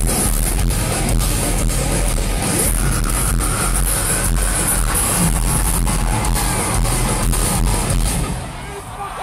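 Heavy metal band playing live: distorted electric guitars over a steady drum beat. The music drops away about eight seconds in as the song ends.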